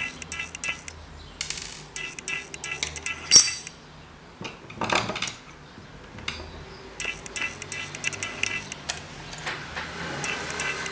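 Clicks and clinks of small hard parts and hand tools being handled while an electronic diagnostic tool is taken apart, with one sharp knock about three and a half seconds in and a brief scraping rustle about a second later.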